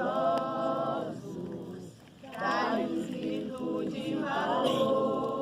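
A group of voices singing together without instruments, holding long notes, with a short break about two seconds in.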